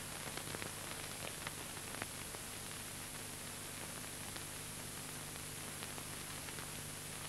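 Steady hiss with a low, steady hum and a few scattered faint clicks: the background noise of an old film soundtrack, with no narration or music.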